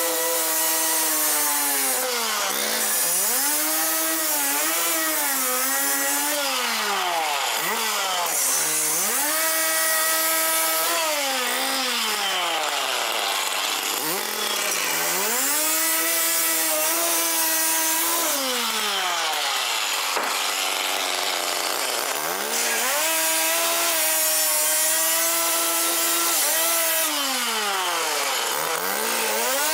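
Gas-powered cut-off saw running at high speed as its abrasive wheel cuts through the car's sheet-steel trunk floor, with a harsh grinding hiss. Its pitch sags several times as the blade bites under load, then climbs back.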